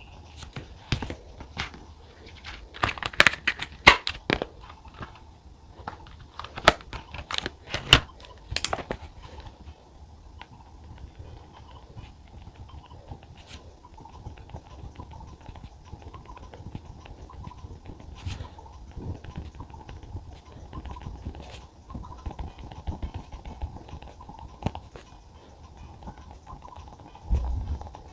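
Pen writing on notebook paper with paper handling: a burst of sharp clicks and rustles in the first nine seconds or so, then quieter, steady pen scratching.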